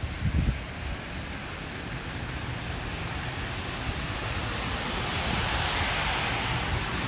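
Steady rain on a wet street with a car passing below, the hiss of its tyres on the wet road swelling over the last few seconds. A brief low rumble sounds near the start.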